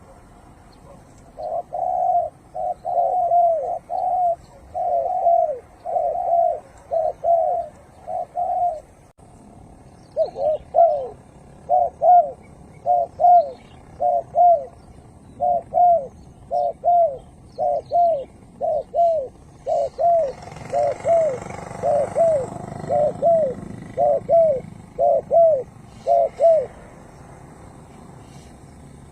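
Spotted dove cooing: repeated phrases of short, mellow, downward-bending coos, one phrase after another with a short pause about nine seconds in. A faint low rushing noise swells in the background about two-thirds of the way through.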